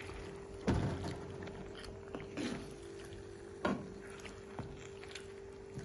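Wooden spatula stirring chicken livers in a frying pan, with three knocks and scrapes against the pan, about a second in, near the middle and later on, over a steady hum.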